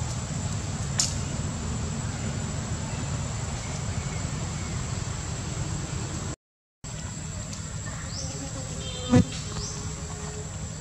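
Outdoor insect drone with a steady high whine over a low background rumble. The sound cuts out briefly just past the middle, and there is a sharp click about nine seconds in, with a few short chirps around it.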